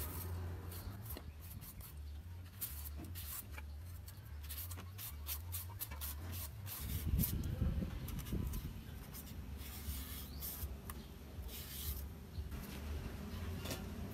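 Repeated short scraping strokes of a handheld vegetable peeler stripping the skin off an elephant foot yam stalk, over a low background hum.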